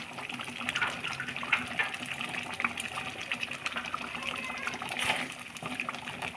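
Thick bottle-gourd curry (lau ghonto) simmering in a metal pan, with a dense, irregular patter of small bubbles popping. About five seconds in, a wooden spoon stirs through it.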